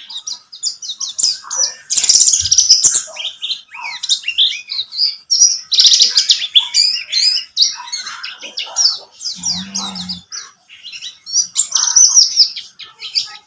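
Oriental white-eye (buxtoni race) singing a fast, continuous high-pitched twittering song of rapid chirping notes.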